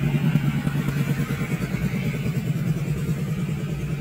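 Isuzu 6BG1 six-cylinder diesel engine of a Sakai TS206 pneumatic tyred roller idling steadily, with a fast even pulse.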